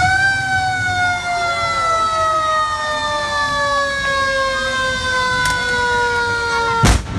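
Fire truck siren, wound up just before and slowly winding down in pitch, one long falling wail. A short, loud burst of noise cuts in near the end.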